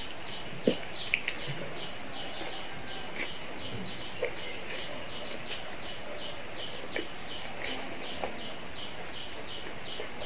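Mouth sounds of eating pizza: a bite about a second in, then a few soft crunches and smacks while chewing. Behind them runs a steady high chirping that pulses about four times a second.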